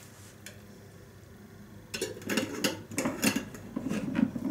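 A spoon scraping and clinking against a container as leftover mixture is scraped out, in a quick run of short strokes starting about two seconds in, after a fairly quiet start with a single small click.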